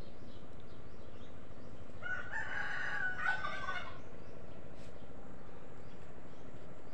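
A rooster crowing once, a single call of about two seconds in the middle, over a steady background hiss.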